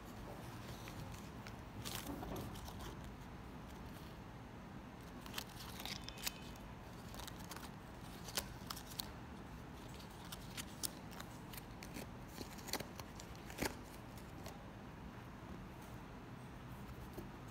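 Faint, scattered clicks and short rustles of hands handling a sneaker and flicking its cardboard hang tag.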